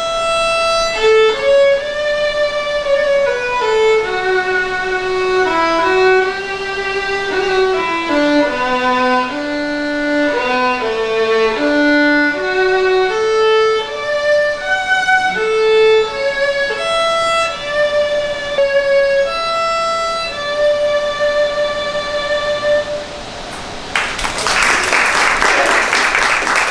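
Solo violin playing a slow melody, one note at a time, with held notes that step up and down. Near the end it stops and an audience breaks into applause.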